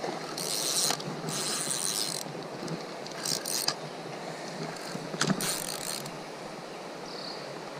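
Fishing reel whirring in several short bursts, about half a second to a second each, while a hooked carp is being fought.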